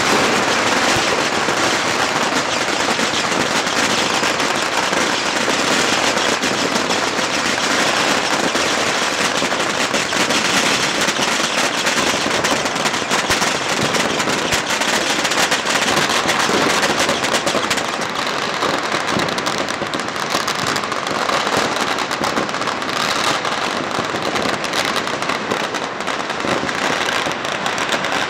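Many firecrackers and fireworks going off at once, blending into a dense, unbroken crackle of countless small bangs that holds steady throughout.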